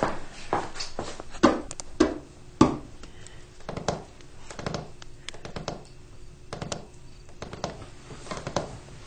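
Footsteps walking away, with a few heavier steps in the first three seconds, followed by fainter, irregular clicks and ticks.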